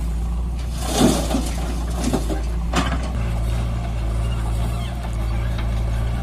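Diesel engines of a JCB backhoe loader and a Mahindra 585 DI tractor running steadily. Soil tipped from the backhoe bucket into the tractor's trolley makes three short bursts of rushing clatter, about a second in and again around two and three seconds in.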